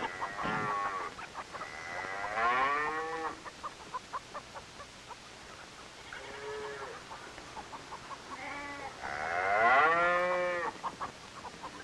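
A sick cow bawling, five drawn-out calls that rise and fall in pitch, the longest near the end, with short clicks between them. The animal is down with rabies, of which hoarse bellowing is a classic sign.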